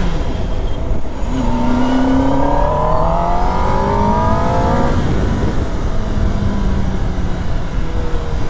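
Kawasaki Ninja ZX-10R inline-four engine under hard acceleration: a gear change at the start, then the revs climb steadily for about four seconds until the throttle closes and the engine runs on at lower revs as the bike slows. Wind rushes over the microphone throughout.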